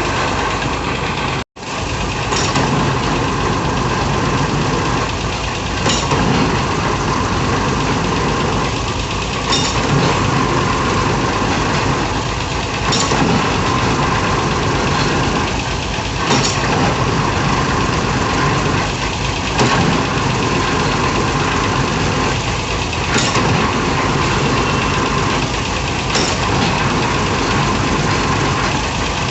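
Hydraulic piling rig's diesel engine running steadily, with a sharp clank about every three and a half seconds. The sound cuts out for an instant about a second and a half in.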